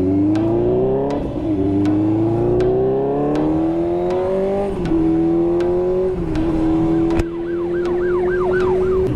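Benelli TNT600's inline four-cylinder engine pulling up through the gears. The pitch climbs, drops back at upshifts about one and five seconds in, then holds at steady cruising revs.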